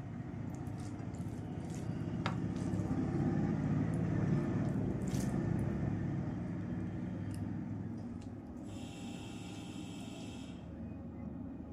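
Close-up eating sounds: rice and fish curry being chewed and squished, with small scattered clicks. A hissing, slurp-like sound lasts about two seconds near the end.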